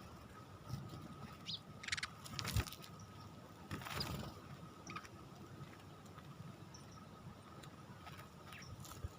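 Sparrows dust-bathing in sand: scattered short chirps and a few brief flurries of fluttering wings, the loudest a few seconds in.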